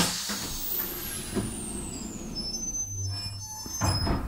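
Compressed-air equipment on a train: a sharp bang, then air hissing out with a high whistle that falls steadily in pitch over about two and a half seconds. A low hum follows, and another loud knock comes near the end.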